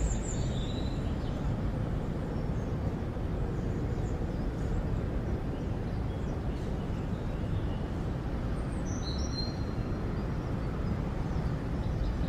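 Steady low rumble of outdoor background noise, with short high bird chirps near the start and again about nine seconds in.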